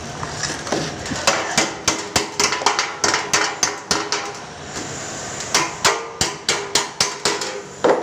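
Hammer blows on a sheet-metal cable tray: a run of sharp metallic strikes that pauses briefly in the middle, then resumes at about four strikes a second.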